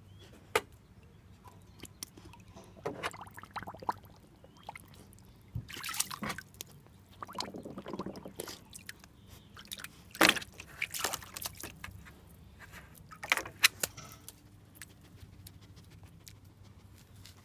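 A puppy blowing bubbles through her nose in the shallow water of a plastic kiddie pool and snapping at them with her mouth: irregular short splashes, bubbling and slurps, with a quiet stretch near the end.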